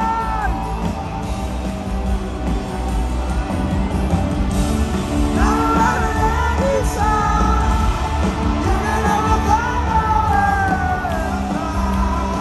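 Live rock concert in an arena: a band playing with a sung melody carried over it through the middle, and shouts from the crowd.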